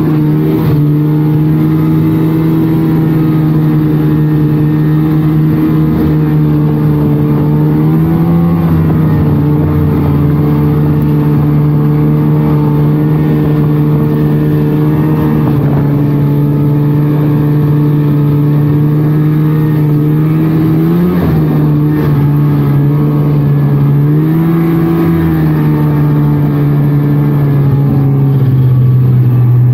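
A 1999 Polaris Trail snowmobile's two-stroke engine runs steadily under way. Its pitch rises briefly about eight seconds in, again around twenty-one seconds and twenty-four seconds, then drops a little near the end.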